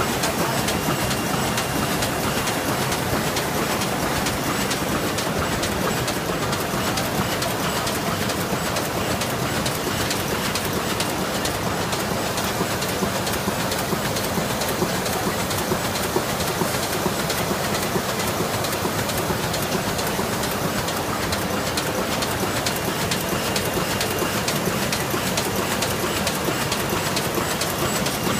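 DLG FMQF 1480 automatic flute laminator running at speed: a steady, dense mechanical clatter of rapid fine clicks that holds even throughout.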